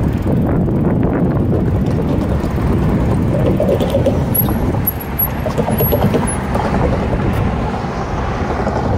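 Steady wind rumble and road noise picked up by a camera on a moving bike, with car traffic passing close by.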